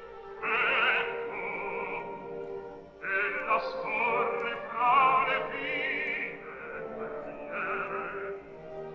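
Operatic voice singing long held notes with a wide vibrato over an orchestra, in three phrases: one starting about half a second in, a longer one from about three seconds, and a short one near the end.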